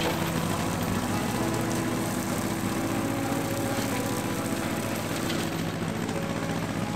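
Tractor engine running steadily, with a fast, even low pulse.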